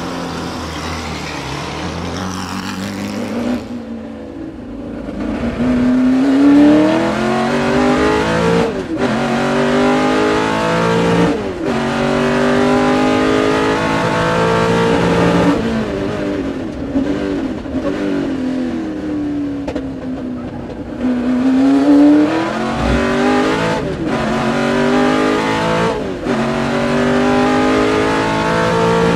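Ford GT40's V8 engine heard from inside the cockpit, pulling hard through the gears with its pitch climbing and dropping at each of several quick upshifts. Midway the revs fall away for a few seconds as the car slows, then the engine pulls up through the gears again.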